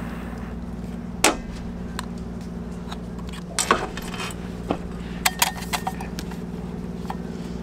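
Sharp metal clicks and clinks as brass and metal candle lanterns are handled, opened and set down on a table, several in quick succession a little past the middle. A steady low hum runs underneath.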